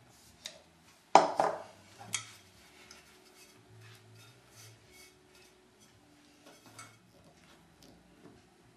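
Kitchenware knocking on a table while a ceramic soufflé dish is floured: a sharp clatter about a second in, another knock about two seconds in, then a few soft taps.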